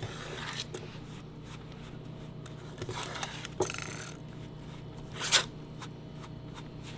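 A spoon scraping and stirring thick flour-and-water dough in a small metal camping pot: scattered scrapes, the loudest about five seconds in.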